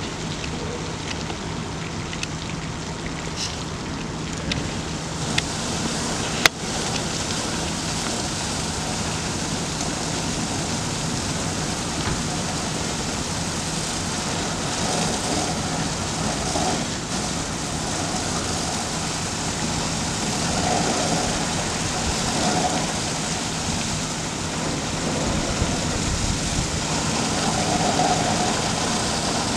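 Fire hose stream spraying water onto a burned-out truck cab and car, a steady rushing hiss over the low hum of an engine running. One sharp knock about six seconds in.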